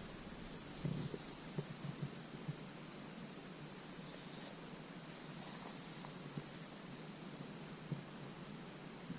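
Insects trilling in a steady, continuous high-pitched chorus.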